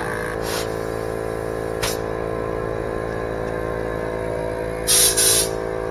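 VIAIR 450P-RV portable 12-volt air compressor running with a steady motor hum while inflating a motorhome's steer tire. Short bursts of air hiss come at the inflator chuck on the valve stem, briefly twice early on, then a louder hiss near the end.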